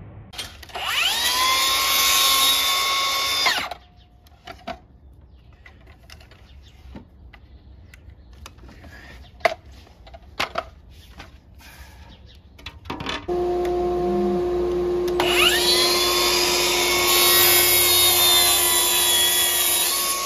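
A track saw's motor spins up with a rising whine and runs through a cut for about three seconds, then stops abruptly, followed by a few light clicks and knocks. A steady low hum starts, then the Milwaukee M18 FUEL cordless track saw spins up again and runs through a second, longer cut.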